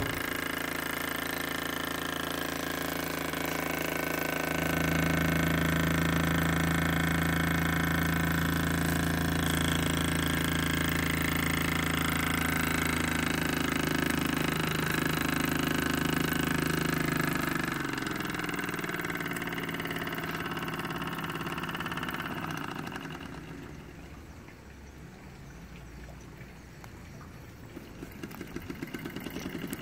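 Jensen 76 toy steam engine running under steam, its fast cylinder beats blending into a steady buzz. About two-thirds of the way through it slows and goes quieter, the separate strokes ticking, then picks up again near the end.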